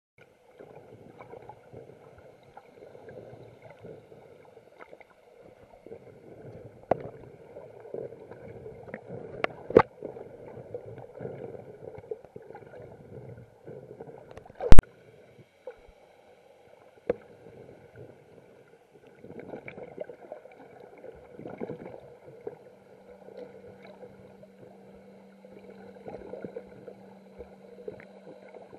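Underwater sound through a waterproof action-camera housing: muffled, irregular water movement with occasional knocks on the housing, the loudest a sharp knock about halfway through. A faint steady whine runs underneath, and a low steady hum joins it for the last several seconds.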